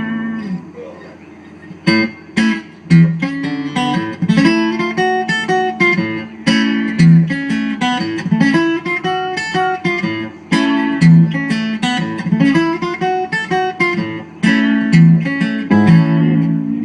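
Acoustic guitar playing a song intro of picked notes over a repeating bass line. It enters after a short pause about two seconds in.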